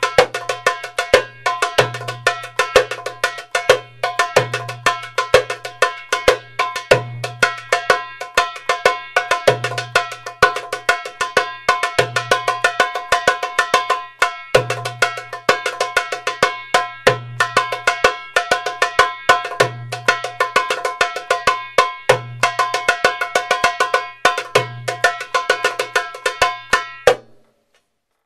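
Darbuka (doumbek) played by hand in a steady Middle Eastern rhythm: one deep doum stroke about every two and a half seconds, with quick bright tek and ka strokes filling between them. The playing stops cleanly near the end.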